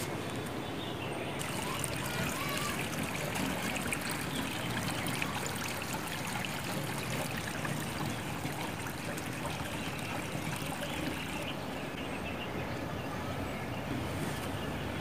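Alaknanda river flowing, a steady, even rush of water.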